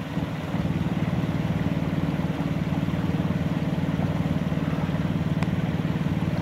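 An engine idling steadily nearby, a low, even pulse with no change in speed.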